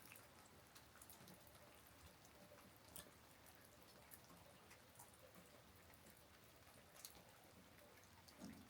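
Faint light rain: scattered drops ticking and dripping over a soft hiss, with a couple of sharper drips about three and seven seconds in and a soft low thud near the end.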